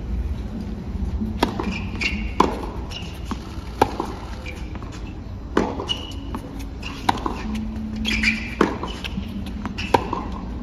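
Tennis rally on a hard court: crisp pops of racket strikes and ball bounces, each a second or so apart and unevenly spaced, over a low murmur from the stadium crowd.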